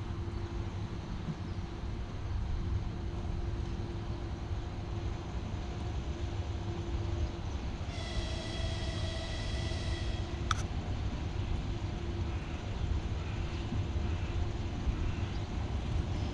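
Steady low wind rumble on the microphone at a railway platform. About eight seconds in, a distant train whistle sounds once for about two seconds, a high tone of several pitches together, followed by a short sharp click.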